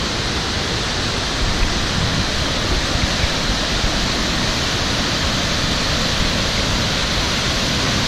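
The Great Falls of the Passaic River at Paterson: a steady, loud rush of water pouring over the rock ledge, heard close from the overlook.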